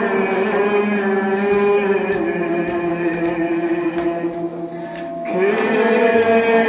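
Male voice chanting a Kashmiri nawah, a Shia lament, in long held notes. The pitch steps down twice in the first couple of seconds, the line fades away about four seconds in, and a new phrase starts with a rising note just after five seconds.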